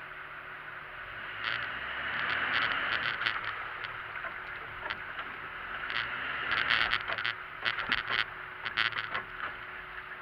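A Jeep's tyres sloshing through wet snow and muddy meltwater on a trail. A rush of noise comes around two to three seconds in, then a string of sharp splashes from about six to nine seconds in, over the vehicle's low running noise.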